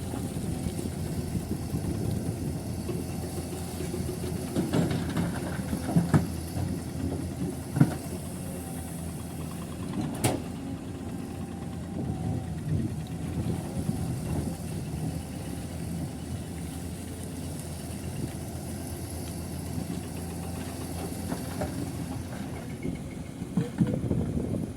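Heavy diesel engine of earthmoving machinery running steadily, with a few sharp metallic clanks and knocks over it, the sharpest about ten seconds in.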